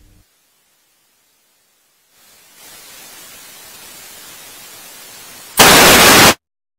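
A faint steady hiss, then a loud burst of static-like noise lasting under a second that cuts off abruptly.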